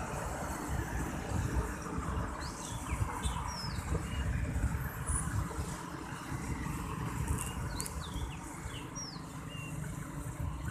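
Motorcycles passing on the road below, a steady wash of small engines and tyre noise. Birds chirp briefly several times over it.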